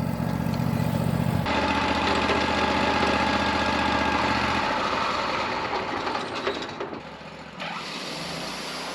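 Portable band sawmill's engine idling steadily, with a steady hiss over it that starts abruptly about a second and a half in and drops away near the end.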